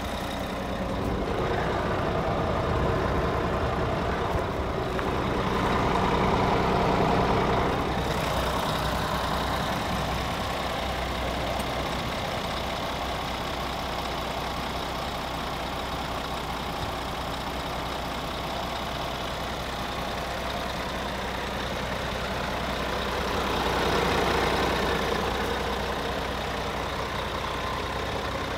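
Scania R450 Euro 6 truck's 13-litre straight-six diesel idling steadily, swelling louder twice: a few seconds in and again near the end.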